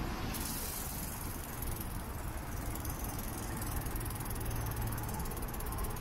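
Street traffic and road noise heard from a moving bicycle in city streets. A high hiss comes in just after the start, and a low vehicle hum grows louder around the middle.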